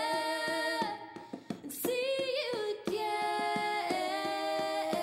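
Recorded song playing for a dance: a singing voice holds long, steady notes over a light percussive tick at about four a second. The music drops briefly a little after a second in, then resumes.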